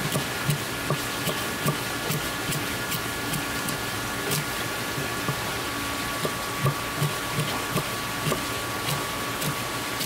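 Kitchen knife tapping on a wooden cutting board as raw flounder is sliced into thin sashimi strips: a run of soft knocks, about two or three a second, over a steady hiss.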